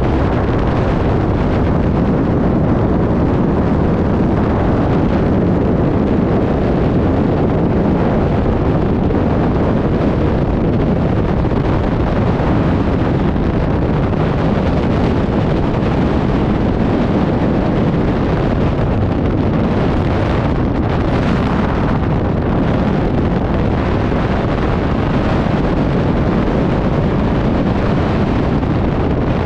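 Steady, loud rush of freefall wind buffeting the microphone of a skydiver's camera, unbroken throughout.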